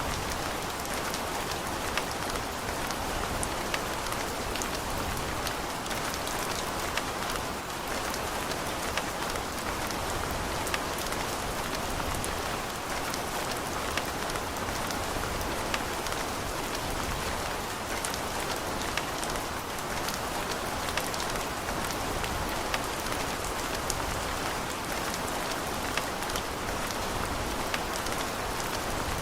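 Steady rain falling on a hard surface, an even hiss with many distinct drops ticking through it.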